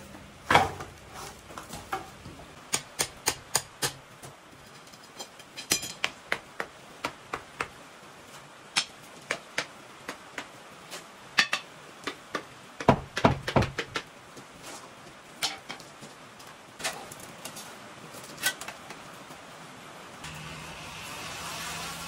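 Wooden concrete form boards and stakes being pulled off a cured concrete slab and dropped onto gravel: a long run of irregular sharp knocks and clatters. Near the end a cordless drill runs steadily for about two seconds, backing out the screws that hold the forms.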